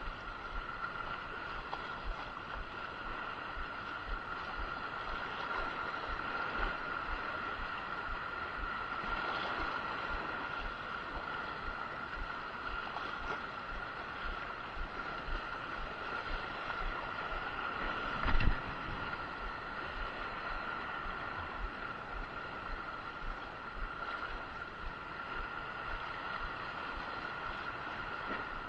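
Steady wind and sea noise on the microphone under a constant high-pitched hum, with one sharp knock about two-thirds of the way through.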